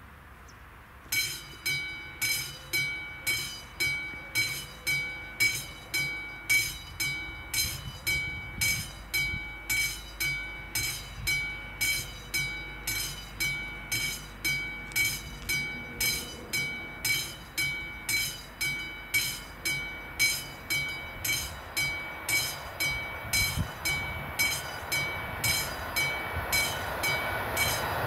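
Level-crossing warning bell, the classic mechanical bell of an AŽD 71 signal, starts ringing about a second in and strikes steadily about twice a second, each stroke ringing on. Near the end the rising rumble of an approaching train swells beneath it.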